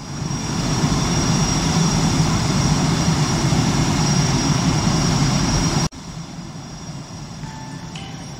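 Jet airliner in flight: steady engine noise that builds over the first second and holds. About six seconds in it cuts off sharply to a quieter, steady drone heard from inside the cabin.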